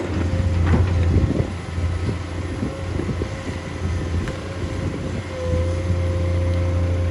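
Heavy machine's diesel engine running with a low, steady drone and a faint whine, with a few knocks and clanks about a second in; the engine grows louder near the end.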